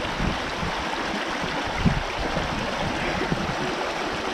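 Snowmelt-fed mountain stream rushing over stones, a steady, even rush of water.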